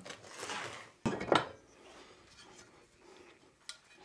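A short scraping swish, then two sharp clacks as hand measuring tools are handled and set down on an OSB board, the second clack the loudest, and a faint tick near the end.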